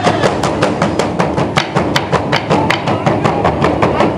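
Large Burundian ingoma drums beaten with wooden sticks: an even, quick pulse of sharp strokes, about five a second.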